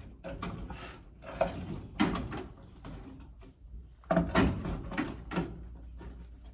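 Tools and fittings being handled at a metal electrical panel: a few separate knocks and clatters, the loudest cluster a little past the middle.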